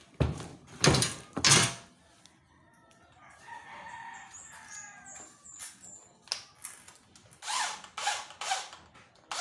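A few sharp knocks as aluminium frame parts and tools are handled, then a rooster crowing faintly in the background for a few seconds, and a few more short knocks near the end.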